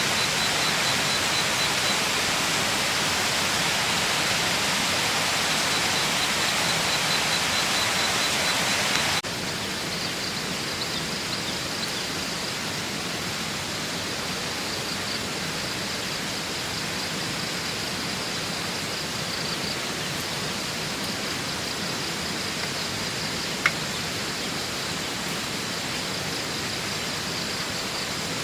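Steady rushing water noise, which drops in level about nine seconds in, with a faint high pulsing trill over it and a single sharp click near the end.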